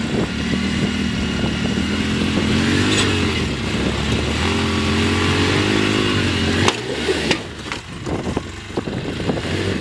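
Polaris RZR side-by-side's engine running hard under load while climbing out of a rock crack, its note rising and falling with the throttle. Partway through there is a sharp knock, then the engine drops back amid scattered knocks.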